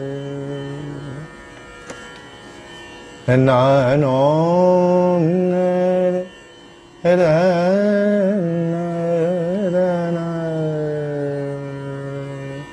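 A man's voice singing a wordless Indian classical alap in free rhythm. There are long held notes with slow, wavering ornamental glides: one note ends about a second in, and two more phrases follow after short pauses. The phrasing is meant for a dawn raga.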